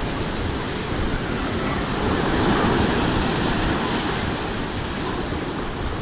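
Surf from a rough sea breaking on a pebble beach: a steady rush of waves that swells to its loudest about two to three seconds in.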